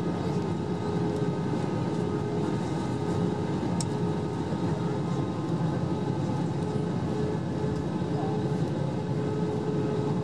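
Steady cabin noise inside an Airbus A321 on approach: a continuous drone of airflow and engines with a steady hum-like tone running through it. A single brief click about four seconds in.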